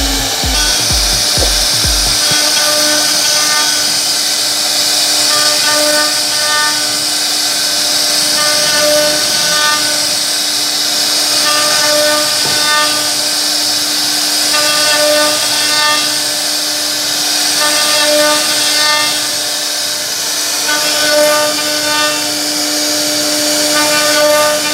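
CNC router spindle running at high speed, its bit carving a row of rounded beads into a wooden board. A steady whine, with the cutting tone swelling and fading every second or two as the bit works through the wood.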